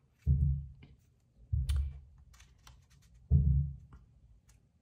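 Hands pressing and handling a plastic laminating pouch on a desk mat: three dull thumps roughly a second and a half apart, with light clicks in between.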